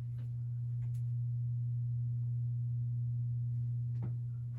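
Steady low electrical hum, one deep unchanging tone with a faint higher overtone, with a couple of faint clicks about a second in and near the end.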